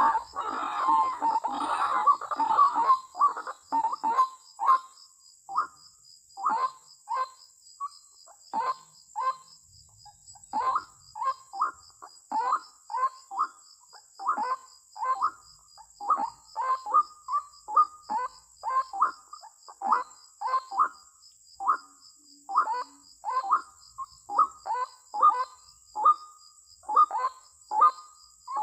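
White-breasted waterhen calling: a long series of short, hoarse notes repeated about two a second, often in pairs, the rhythmic 'ruak-ruak' call.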